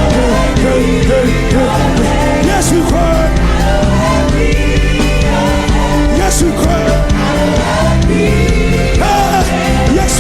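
Loud live church praise music: a band playing with singing voices over it.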